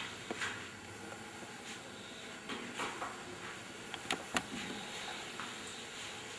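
Marker pen on a whiteboard: a few short scratchy strokes and sharp ticks of the tip against the board, loudest about four seconds in.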